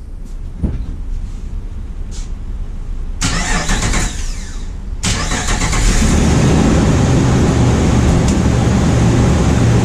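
Jeep TJ's 4.0-litre inline-six being started: the starter cranks from about three seconds in, the engine catches at about five seconds, then it runs steadily and loudly.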